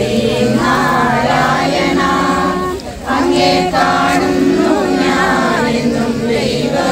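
A group of voices singing together unaccompanied, in long held notes, with a brief dip about three seconds in.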